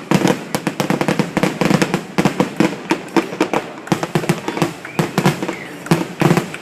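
Fireworks going off in a rapid, irregular string of sharp pops and cracks, many a second, with a brief lull about four seconds in.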